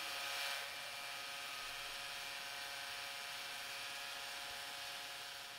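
Milling machine spindle running steadily with a whine of several even tones while an end mill cuts a brass workpiece. A light hiss from the cut is a little stronger in the first half second.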